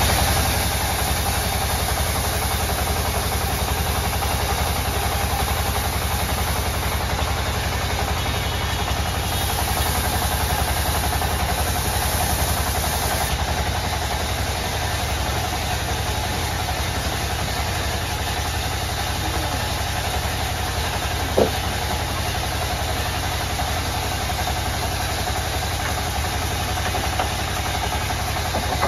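Sawmill band saw running steadily, its blade cutting lengthwise through a large log. A single sharp knock comes about two-thirds of the way through.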